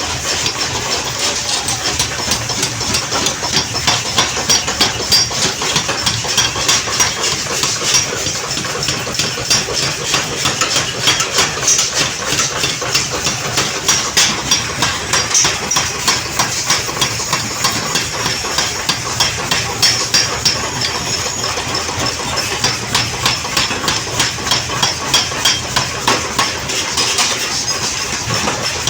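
Mechanical power hammer striking metal in forging with a rapid, steady run of sharp blows, over the constant running of the machine.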